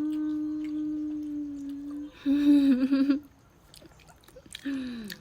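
A person's voice humming without words: one long held note, then a shorter, louder wavering phrase, then a falling note near the end.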